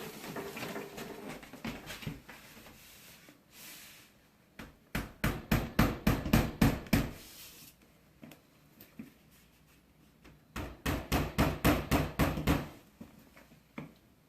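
Two runs of rapid, heavy banging, each several blows a second and lasting two to three seconds, the first about five seconds in and the second about ten and a half seconds in.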